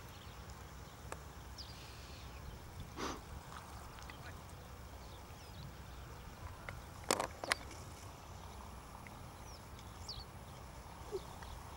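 Open-country ambience: a steady low rumble, a few faint high bird chirps, and scattered short sharp calls or clicks, the loudest two close together about seven seconds in.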